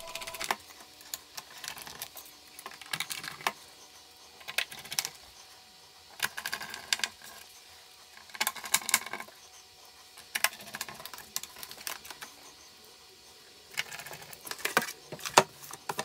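Hand screwdriver driving small screws into the plastic underside of a DVR case: short clusters of light clicks and rattles, coming again every second or two with quiet gaps between.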